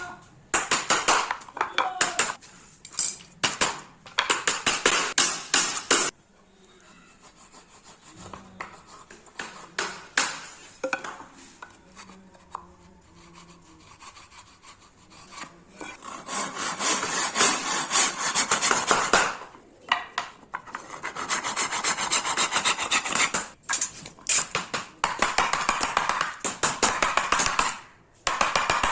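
Wood being cut by hand in rapid back-and-forth strokes, in spells of several seconds. There is a quieter pause of about ten seconds in the first half.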